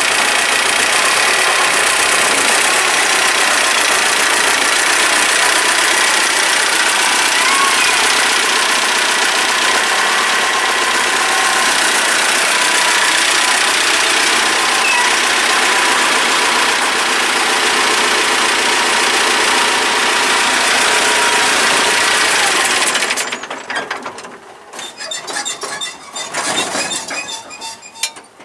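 T-40AM tractor's diesel engine running steadily and loudly, then shut off about five seconds before the end, leaving quieter, uneven sounds.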